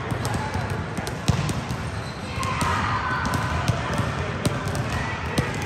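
Basketballs being dribbled, sharp irregular bounces about three a second.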